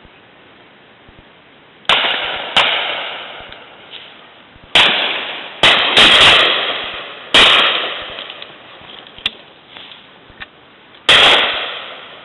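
Shotguns firing at driven game birds: about seven loud shots in an uneven string, some in quick pairs, each echoing away, with fainter distant shots from other guns between.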